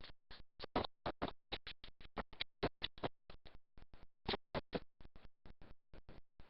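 A rapid, uneven series of short clicks or taps, about five or six a second.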